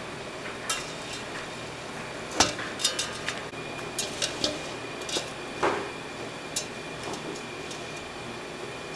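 Dishes and metal utensils clinking and knocking in a string of sharp, irregular clinks, the loudest about two and a half seconds in, over a faint steady high hum.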